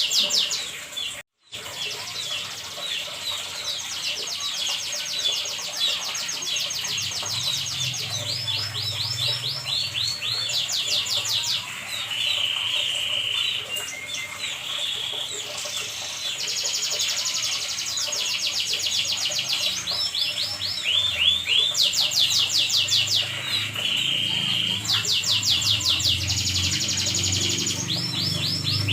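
Domestic canary singing its long song: phrase after phrase of fast, high trills and rolls, each run of repeated notes changing to the next. The song cuts out briefly about a second in.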